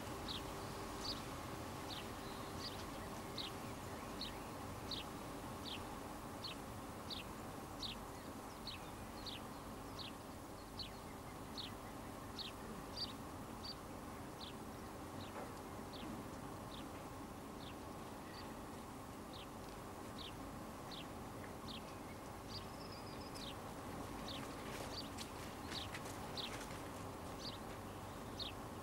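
Quiet outdoor ambience: a small bird giving short, high chirps that drop in pitch, repeated about every two-thirds of a second, over a faint steady hum.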